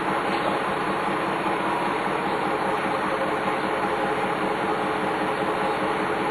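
Dennis Lance bus with a Cummins 6CT straight-six diesel and ZF 4HP500 automatic gearbox running steadily underway: a constant engine drone and road noise with a faint steady whine.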